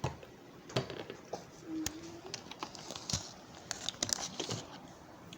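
Scattered small clicks, knocks and crinkling from objects being handled, with a brief low hum about two seconds in.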